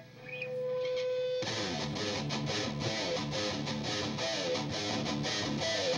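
A groove metal band begins a song live: a single held note, then about a second and a half in the full band comes in together with distorted electric guitars playing a driving riff.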